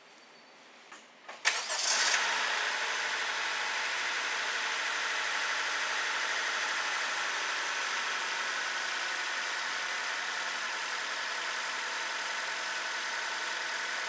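Honda Civic four-cylinder engine cold-started: a short crank about a second and a half in, it catches at once and then idles steadily. It is running with a cylinder-two misfire, which the mechanic traces most likely to oil getting past bad piston rings on that cylinder.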